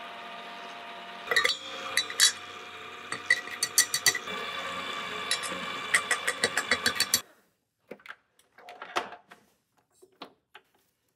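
Small electric kitchen appliance motor running steadily with a hum, with repeated sharp clicks and knocks over it; it cuts off suddenly about seven seconds in, and a few light clicks and knocks follow.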